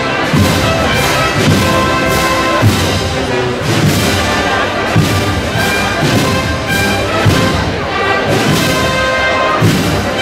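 Brass and wind band playing a slow procession march, with a bass drum beat about once a second under sustained brass chords.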